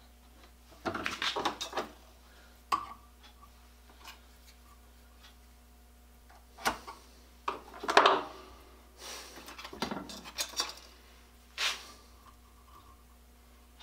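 Scattered metal clinks, clatters and knocks of a bench vise handle and cast-iron treadle grinder cranks being handled at a workbench as a crank is tried on the end of a steel axle held in the vise, the loudest clatter about eight seconds in.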